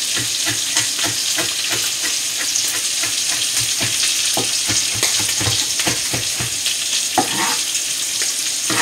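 Ribeye steak sizzling in a frying pan, a steady hiss. Over it, a knife chops fresh parsley on a cutting board in quick, even taps, about three a second.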